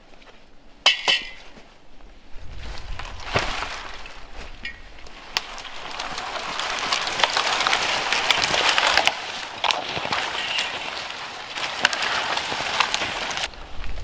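A sharp clink with a brief ring about a second in, then a long stretch of rustling noise dotted with clicks and snaps that stops suddenly near the end.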